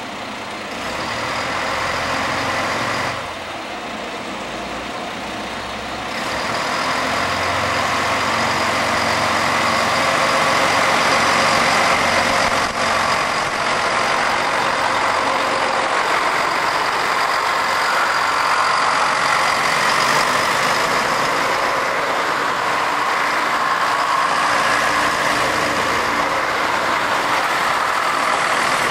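JR Shikoku 2000-series diesel express multiple unit's engines running, dipping briefly about three seconds in, then growing louder from about six seconds as the train pulls out and moves past, with a steady high whine over the drone.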